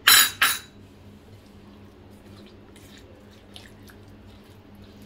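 A silicone spatula mixing chicken in a thick yoghurt-and-spice marinade in a glass bowl: two loud quick scrapes against the glass at the start, then faint soft wet stirring with small clicks.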